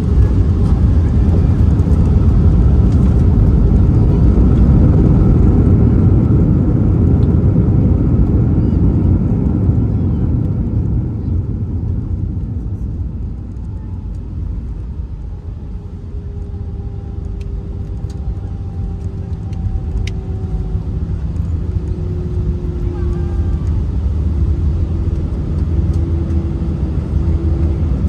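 Airbus A319's landing rollout heard from the passenger cabin: a heavy rumble of the wheels on the runway and the CFM56 engines as the jet decelerates. The rumble eases off about half-way through as the aircraft slows, leaving a steadier engine hum with faint whining tones.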